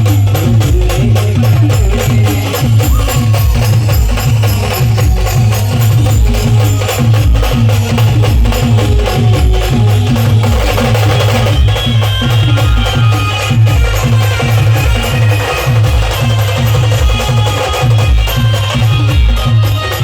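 A village band playing loud, fast music: a driving drum beat with heavy bass thumps and rapid percussion, with a melody line over it.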